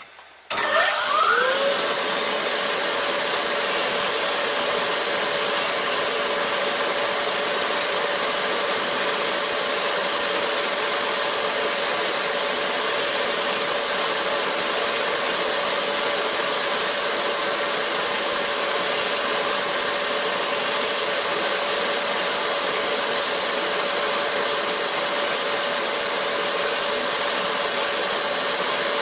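Shoemaker's finishing machine with wire-brush wheels switched on: its motor spins up within about a second to a steady hum, under a loud, even rushing noise. A small steel sewing-machine part is held against the spinning wire-brush wheel to clean it.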